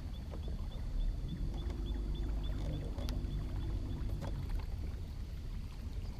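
Steady low hum and rumble of a bass boat's electric trolling motor, which drops out at the start, comes back after about a second and stops again after about four seconds. Over it, a bird repeats a short high chirp about four times a second for the first four seconds.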